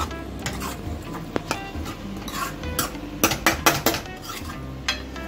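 Metal ladle stirring a thick vegetable masala in a metal kadai, scraping and knocking against the pan, with a cluster of louder clinks a little past the middle.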